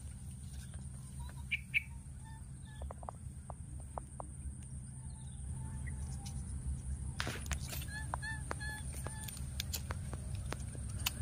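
Short bird calls, like fowl clucking: a couple about a second and a half in and a quick run of five or so about eight seconds in. Light clicks and rustles and a low steady rumble sit underneath.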